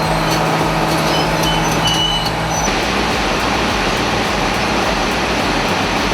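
Heavy machinery running with steady engine noise; a steady low tone drops out and the sound changes abruptly a little under three seconds in.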